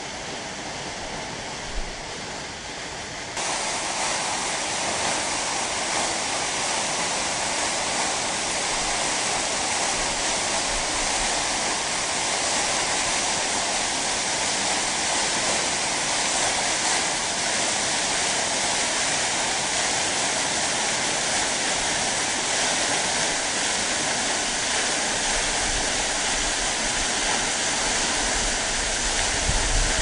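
Waterfall rushing in a steady, even roar of falling water. About three seconds in the sound switches abruptly to a louder, brighter rush, and low rumbling comes in near the end.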